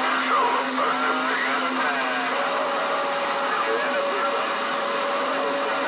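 Galaxy CB radio receiver hissing with band static, faint garbled voices of distant stations buried in the noise. A steady whistle runs through it, low at first, then a higher one from a little over two seconds in.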